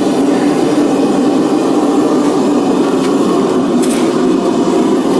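A forge running with a steady, loud rushing noise.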